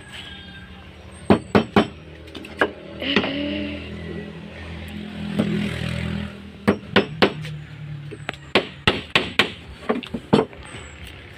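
Hammer driving nails into wooden boards, sharp strikes in quick runs of two to four. A steady engine hum swells in the background for a few seconds in the middle.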